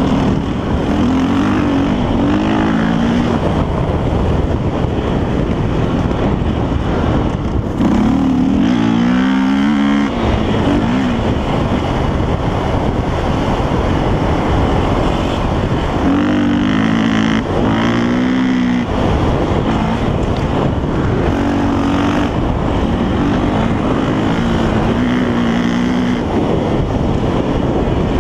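KTM dirt bike engine running under load while riding, its revs climbing in rising sweeps through the gears several times and falling back between them.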